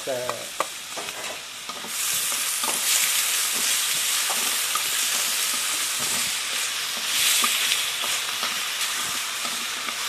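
Pieces of marinated bird meat with shallots and fresh turmeric frying in hot oil in a pan, being stirred. The sizzle rises sharply about two seconds in as the meat takes the heat, swells again near the end, and has a few light knocks of the stirring utensil against the pan.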